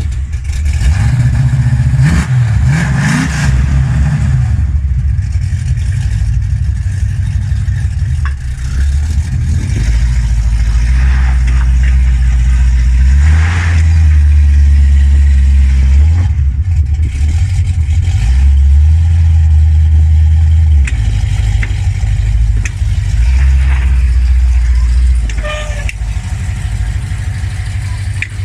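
A motor vehicle running, its deep drone shifting up and down every few seconds, with a brief rise in revs early on.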